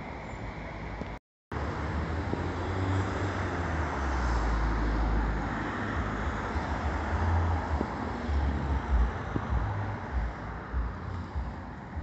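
Street traffic: a motor vehicle's engine running with a low rumble that swells and fades, over steady road noise. The sound drops out completely for a moment about a second in.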